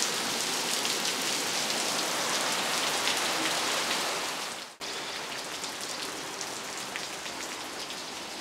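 Heavy monsoon rain falling steadily on leaves. It cuts out for an instant about halfway through, then carries on a little quieter.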